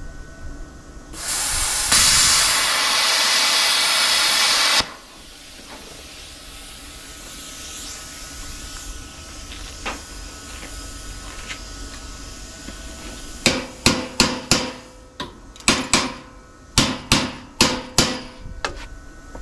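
A loud steady hiss lasting about three and a half seconds that cuts off suddenly. After a lull, about a dozen sharp knocks come in quick, irregular groups, like hammer strikes.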